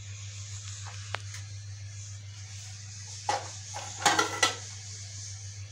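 A few sharp metallic clanks of aluminium cookware being handled, between about three and four and a half seconds in, over a steady low hum.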